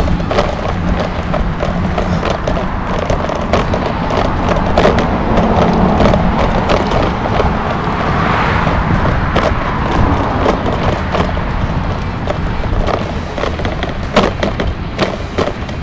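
Riding noise from a moving bicycle: wind on the microphone and tyres rolling over pavement, with frequent rattling clicks. The noise swells and fades about halfway through.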